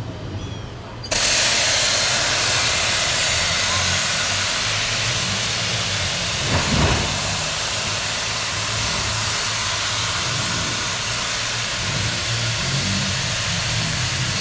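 1927 Vulcan 0-4-0T saddle-tank steam locomotive venting steam: a loud, steady hiss starts suddenly about a second in and holds over a low rumble, with a short thump near the middle.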